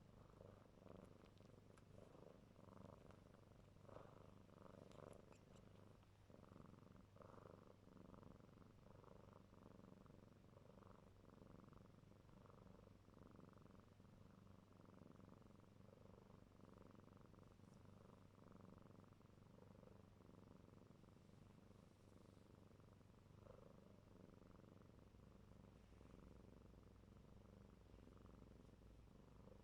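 A young kitten purring faintly and steadily, with a soft pulsing about twice a second.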